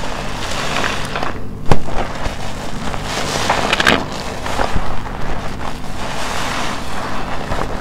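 A foam-soaked sponge being squeezed by hand: wet squelching and crackling of soap foam that swells and eases with each squeeze, with one sharp crack a little under two seconds in.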